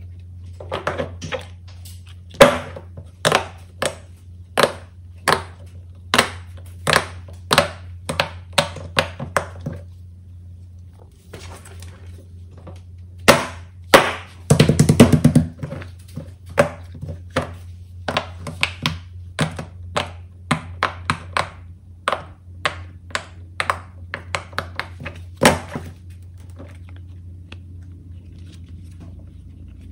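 Silicone pop-it fidget toys being pressed, their bubbles popping with sharp, separate clicks one after another, with a quick rapid run of pops about halfway through. The clicks stop a few seconds before the end, leaving a steady low hum.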